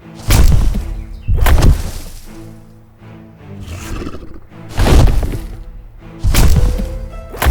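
Music playing, broken by about five loud crashing impacts at uneven intervals.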